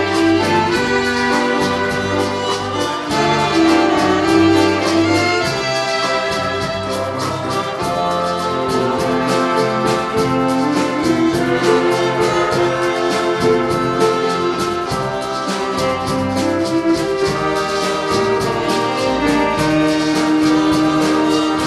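Big band playing live: saxophones, trumpets and trombones over drums keeping a steady beat.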